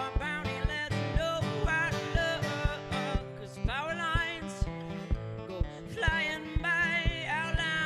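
A man singing with an acoustic guitar: steady strummed strokes throughout, with sung lines of wavering held notes coming in about halfway through and again near the end.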